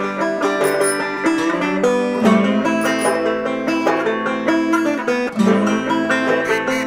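Instrumental background music: a plucked string instrument picking quick notes over held lower notes.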